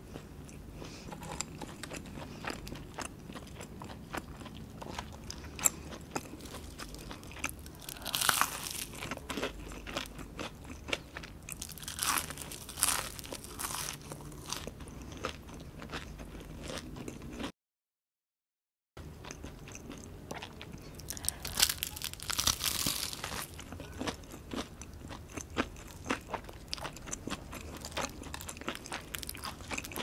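Close-miked chewing and crunching of crispy battered onion rings, with several louder crunching bites between steady wet chewing clicks. The sound cuts out completely for about a second midway.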